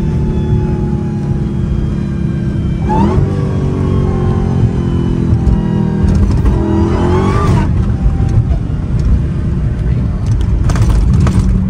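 Supercharged 6.2-litre Hemi V8 of a Dodge Hellcat heard from inside the cabin on the move, with a steady low rumble. The revs climb sharply about three seconds in and again around seven seconds, and the pitch falls back in between.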